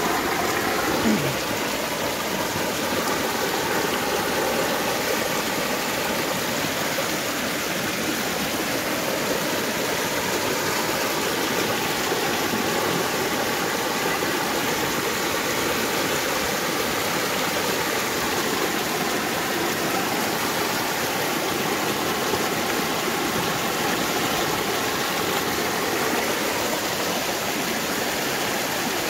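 Muddy floodwater rushing across a road and churning around tree trunks: a steady, unbroken rush of water. There is a brief knock about a second in.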